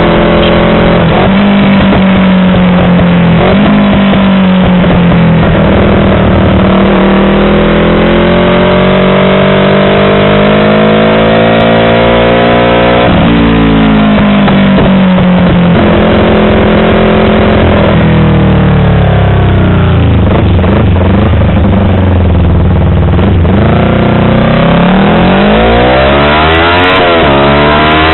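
Yamaha R25 parallel-twin engine through a WRX aftermarket exhaust, loud and revving. Its pitch climbs for several seconds, drops sharply about halfway through and falls again, then swings quickly up and down in blips near the end.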